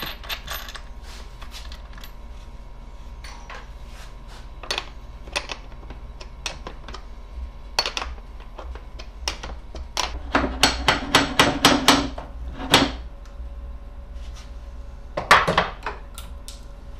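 Metal bolts, nuts and washers clicking and knocking as they are fitted by hand through a plywood jig into a wood-centred handcar wheel. A quick run of about a dozen sharp taps comes a little past halfway, and another short cluster of knocks near the end.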